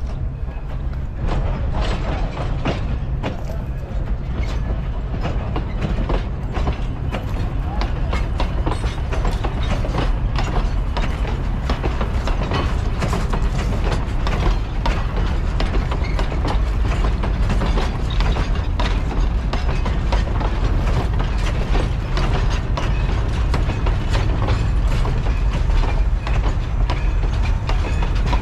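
Narrow-gauge steel hopper cars rolling slowly past close by: a steady low rumble with many irregular clicks and clanks from the wheels and couplings, growing a little louder as the cars come alongside.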